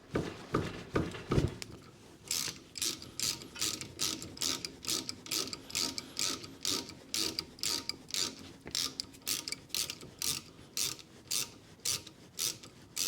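Socket ratchet clicking steadily, about three clicks a second, as a 17 mm brake caliper slider bolt is undone; a few knocks in the first two seconds.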